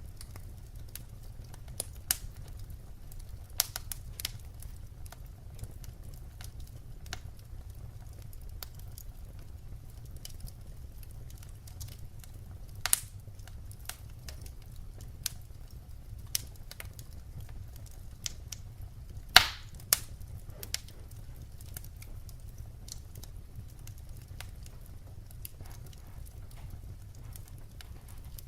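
Wood fire crackling, with scattered sharp pops over a low steady rumble; the loudest pop comes about two-thirds of the way through.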